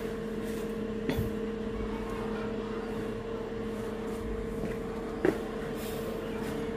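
Steady electrical hum at two low pitches from a powered sound-system amplifier rack, with two short faint clicks, about a second in and about five seconds in.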